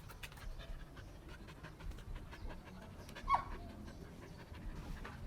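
Belgian Malinois panting rapidly, with one brief high-pitched squeak that falls in pitch about three seconds in.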